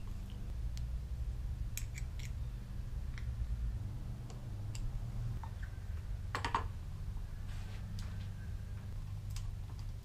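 Scattered light clicks and knocks as a plastic motorcycle handlebar switch housing is fitted around the bar and its screws driven in with a screwdriver, the sharpest knock about six and a half seconds in, over a steady low hum.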